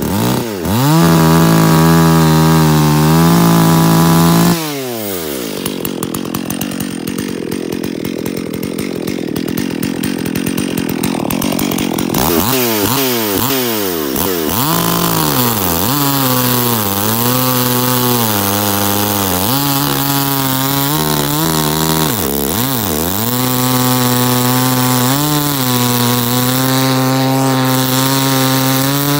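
Stihl 034 Super two-stroke chainsaw, rebuilt with the base gasket deleted and a ported muffler, run at high revs. It is loudest in the first few seconds. Later it is cut into a log, its engine note dipping and recovering under load before holding steady in the cut.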